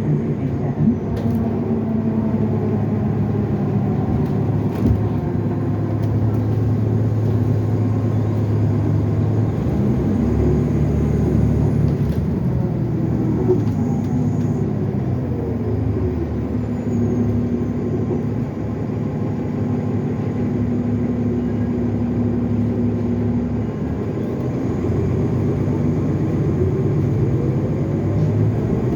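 A 2015 NovaBus LFS Artic hybrid bus under way, heard from inside, its Cummins ISL9 diesel running steadily with a change in engine note about a third of the way in. A whine falls in pitch around the middle and another rises near the end, the turbo whine that the recording is made to show.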